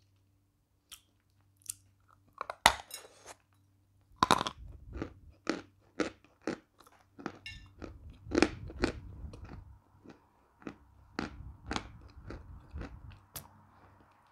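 Edible chalk being bitten and chewed right at a lapel microphone: a few sharp cracking bites, then a fast string of dry crunches, about two to three a second.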